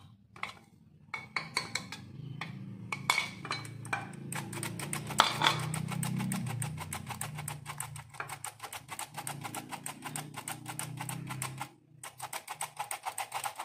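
Hand-operated stainless steel flour sifter clicking rapidly and steadily as ragi (finger millet) flour is sifted through its mesh. Before it starts there are a few scrapes and taps of a spoon moving the flour into it. The clicking stops briefly near the end, then starts again.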